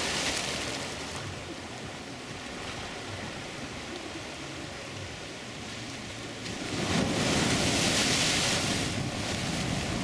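Small ocean waves breaking over a rocky shore and washing through the rocks. The surf is steady, with a louder wave crashing and foaming in about seven seconds in for roughly two seconds.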